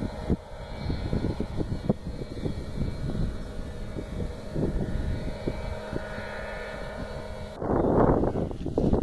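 Fisher FP404 light biplane's engine and propeller running steadily, with wind buffeting the phone's microphone. A loud rush of wind noise takes over near the end.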